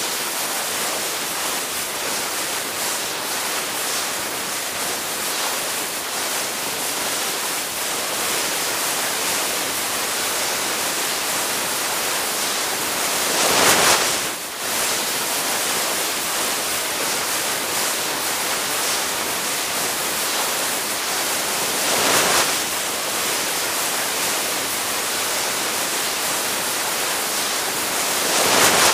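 Skis sliding over snow: a steady hiss, swelling three times into a louder, brighter swoosh, about halfway through, about three-quarters through, and at the very end.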